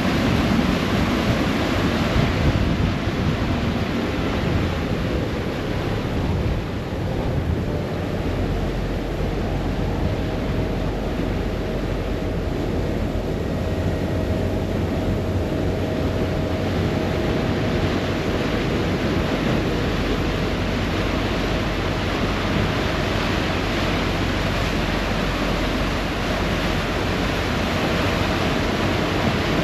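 Passenger ferry under way: a steady rush of churning wake water and wind on the microphone, with a low, steady engine hum that sets in about eight seconds in.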